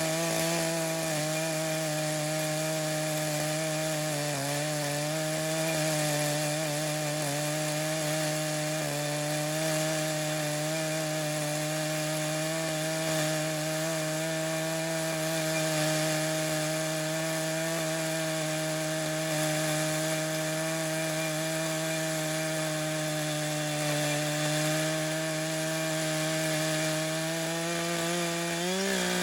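Echo CS-590 two-stroke chainsaw running at steady high throttle while ripping lengthwise through red oak in a homemade chainsaw mill. The engine note dips briefly near the end.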